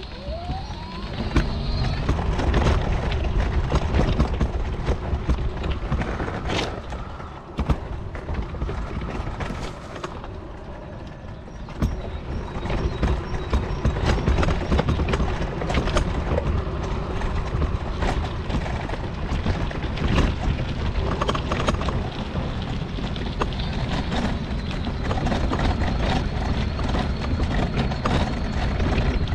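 Folding mobility scooter on the move: a steady electric motor whine under a heavy rumble, with frequent rattles and knocks from the frame.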